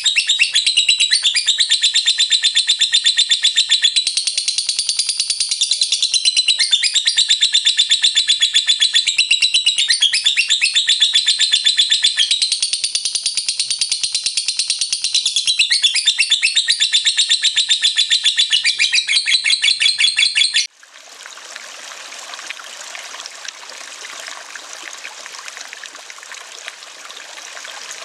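A lovebird's long, rapid, unbroken chattering trill (the 'ngekek'), high-pitched. It cuts off suddenly about 21 seconds in and gives way to the steady rush of running water.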